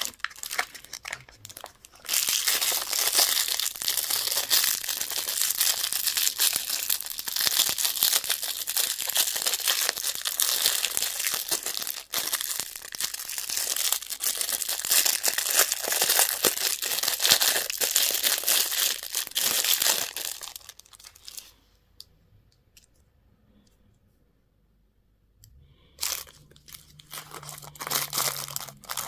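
Candy and toy wrapper packaging being torn open and crinkled, a dense run of crackling. It stops about two-thirds of the way in, goes nearly silent for a few seconds, then starts again near the end.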